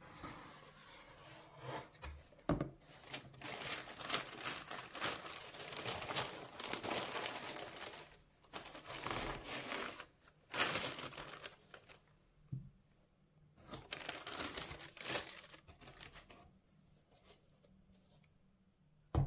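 Tissue paper inside a cardboard shoebox crinkling and rustling as it is folded back and a sneaker is lifted out, in two long spells, with a few soft knocks near the start.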